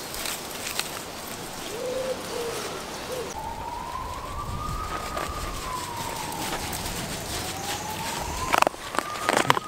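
Siren wailing, one clear tone rising and falling slowly in pitch, a full rise and fall taking about four seconds. Near the end come a few sharp clicks and knocks.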